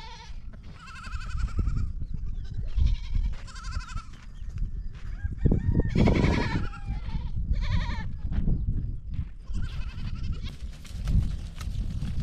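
Goats bleating again and again, about eight short quavering calls, the loudest about six seconds in, over a steady low rumble.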